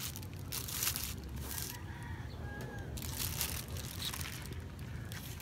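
A plastic bag crinkles in short bursts as it is handled around a cup. A rooster crows faintly about two seconds in.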